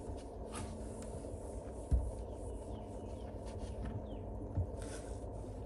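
Faint handling sounds at a car's dash and windshield: a few brief swishes and one dull thump about two seconds in, over a low steady rumble.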